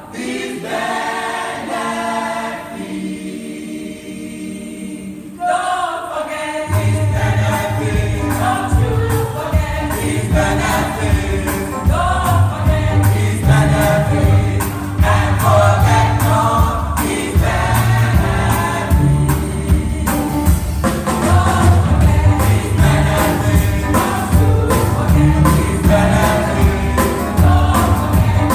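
Gospel choir, mostly women's voices, singing unaccompanied on held chords, then a band with a heavy bass line and a steady beat comes in about six seconds in and the choir sings on over it.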